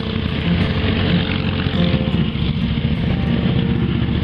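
Several motorcycles riding by in a line, their engines running steadily with a dense, fast-pulsing exhaust rumble as the nearest bike approaches.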